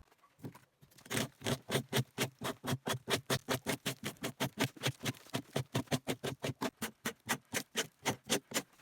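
Hand bark scraper rasping bark off an oak log in fast, short strokes, about six a second, stripping it down to the living wood.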